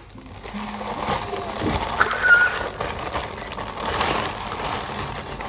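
Clear plastic packaging rustling and crinkling in irregular crackles as a bagged pair of clogs is handled and unwrapped by hand.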